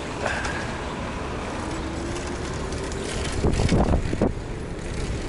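Riding noise from a Ninebot Max electric kick scooter: wind on the microphone and tyre rumble, with road traffic around. A louder burst with a wavering pitch comes about three and a half seconds in.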